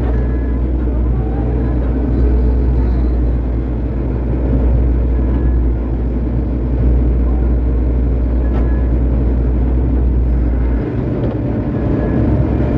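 Excavator's diesel engine running steadily while it digs, a constant low drone with the deepest part shifting about eleven seconds in.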